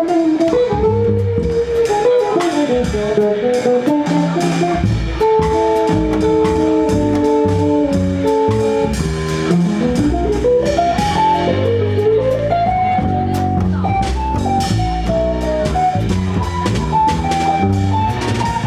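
Small jazz group playing a bossa nova arrangement: a guitar melody over drum kit and low accompaniment, with a quick climbing run about ten seconds in.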